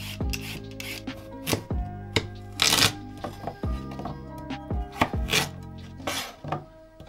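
A vegetable peeler scraping a carrot, then a chef's knife chopping carrots on a plastic chopping board: irregular sharp knocks, roughly one every half second to a second.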